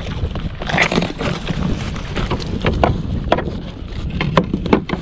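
Wind buffeting the microphone over a plastic kayak, with a string of sharp knocks and taps as a landing net holding a freshly caught fish is brought in over the hull.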